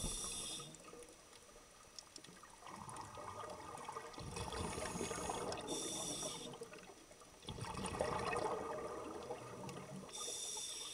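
Scuba breathing through a regulator underwater: a short hiss of inhalation about every five seconds, each followed by a longer stretch of bubbling as the exhaled air leaves the exhaust valve.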